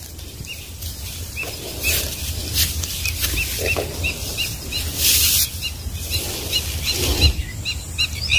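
A bird calling in a quick series of short, high chirps, over knocks and rustling from handling and a low wind rumble.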